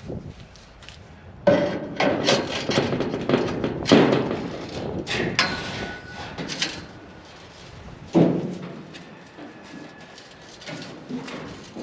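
Irregular knocking and clattering of parts being fitted together while a tripod deer feeder is assembled. The knocks come thick for several seconds, then there is another sharp knock.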